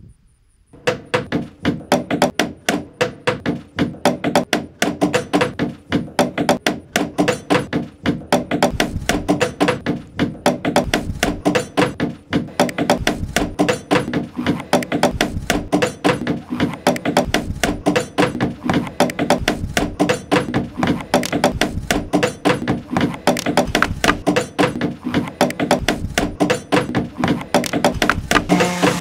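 Hammers striking nails into wood, a dense, continuous run of blows several a second.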